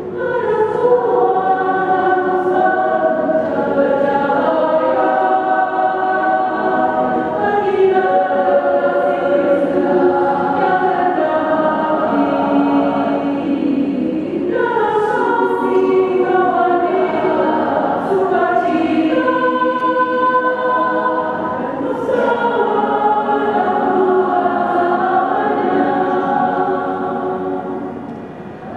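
Women's choir singing in parts, holding full sustained chords that shift from one to the next; the sound dips briefly near the end between phrases.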